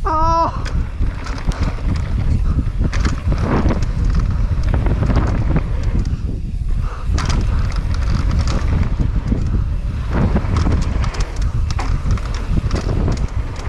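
Mountain bike riding fast down a dirt trail: wind buffeting the camera microphone over the rumble of the tyres, with constant rattles and knocks from the bike over the bumps. A short wavering tone sounds at the very start.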